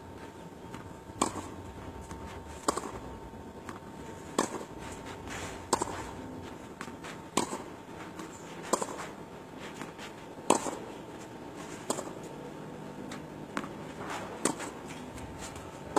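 Tennis ball struck by rackets in a rally: a sharp pock about every second and a half.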